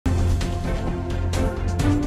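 Background music with a sustained low bass note and a steady percussive beat.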